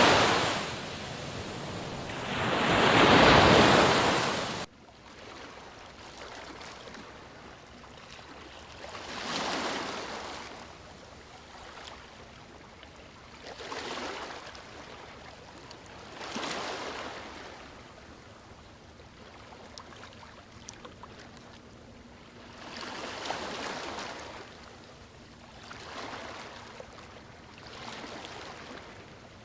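Ocean waves washing onto a shore. Two loud surging swells come first, then an abrupt cut about four and a half seconds in to a quieter recording, where softer waves wash in every few seconds.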